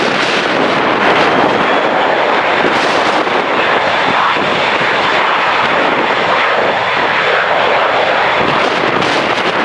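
Airplane engines running loud and steady as a plane takes off or lands, with a faint high whine in the first half, and strong wind on the microphone.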